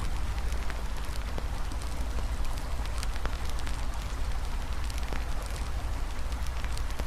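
Campfire crackling, with many small sharp pops scattered throughout, over the steady rushing hiss of a river and a low rumble underneath.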